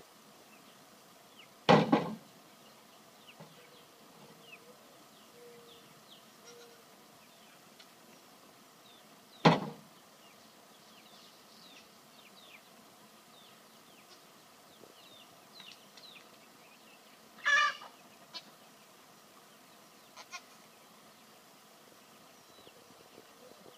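Three short, loud animal sounds a few seconds apart, about two, nine and a half and seventeen and a half seconds in, the last a pitched call, from a dog and a goat squaring off. Faint bird chirps throughout.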